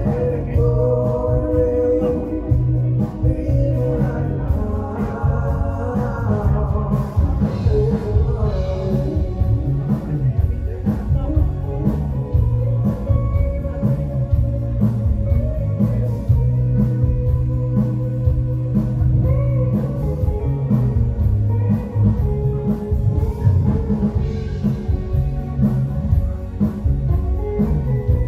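Live band playing a song: a male singer over electric guitar, bass guitar and drums. The singing drops out for a stretch in the middle while the band plays on, and comes back near the end.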